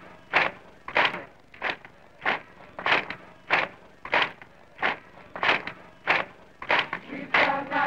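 Rhythmic clapping by a group of people, a steady beat of about three claps every two seconds, with voices coming in near the end.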